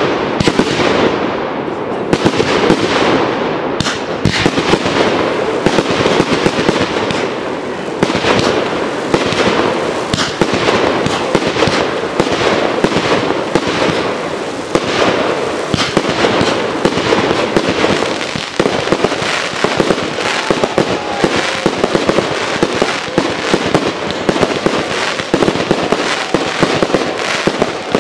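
Fireworks display going off without pause: a dense run of aerial shell bursts, many sharp bangs overlapping with crackling.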